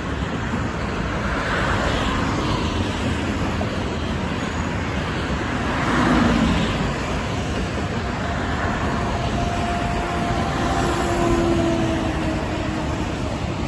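Road traffic on a multi-lane highway: cars pass close by one after another over a steady roar of tyres. The loudest pass comes about six seconds in.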